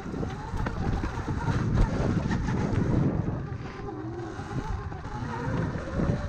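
Riding a Sur-Ron electric dirt bike on a trail: wind buffeting the microphone over a steady rumble from the bike and tyres, with a faint electric-motor whine that rises and falls in pitch.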